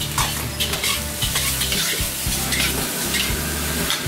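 Lettuce sizzling in a hot wok as it is stir-fried, with a metal wok spatula scraping and knocking against the wok several times.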